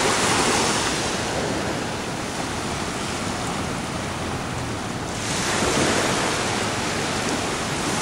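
Small Pacific waves breaking and washing up a sandy beach: a steady rush of surf that eases for a few seconds, then swells again about five seconds in.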